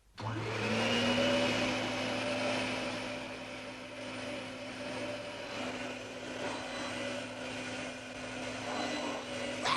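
Cartoon sound effect of a motor whirring: it starts suddenly, rises briefly in pitch as it spins up, then runs as a steady drone over a hiss.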